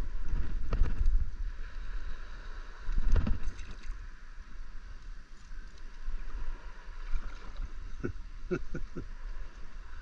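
Shallow saltwater sloshing and gurgling with wind rumbling on the microphone, swelling louder about three seconds in.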